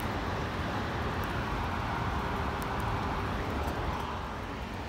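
Steady outdoor noise of a freezing-rain storm through an open window, a hiss that swells slightly in the middle, with a few faint sharp ticks.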